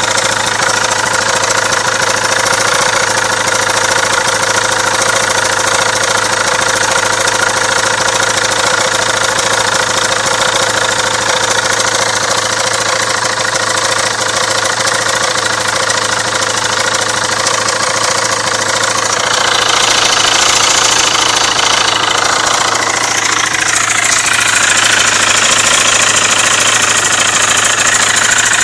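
KTM 690 SM's single-cylinder four-stroke engine idling steadily, getting a little louder and brighter in the last third.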